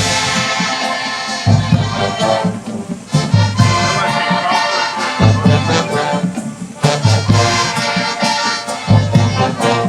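High school marching band playing: brass holding sustained chords over low drum hits.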